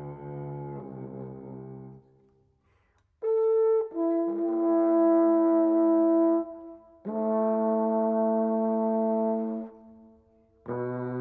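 Solo trombone playing a series of held notes separated by short silences, the first sliding downward in pitch, then a short higher note, two longer sustained notes, and a low note entering near the end.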